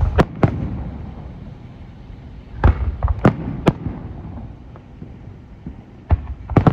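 Aerial fireworks shells bursting overhead: sharp booms in clusters, two just after the start, about four in quick succession around the middle and two more near the end, with a low rumble of echo between them.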